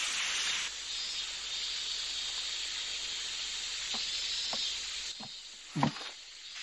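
Water spraying from a garden hose spray nozzle in a steady hiss, which drops away about five seconds in. A few faint ticks follow, then one short, louder knock near the end.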